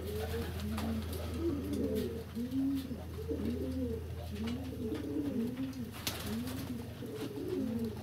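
Domestic pigeons cooing continuously, several birds overlapping, each coo a short call that rises and falls, over a steady low hum.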